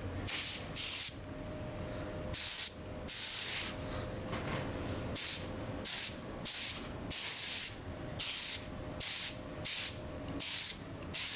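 Gravity-feed paint spray gun spraying clear coat in short trigger pulls: about a dozen hissing bursts of air and paint, each under a second, with a steady quieter background noise between them.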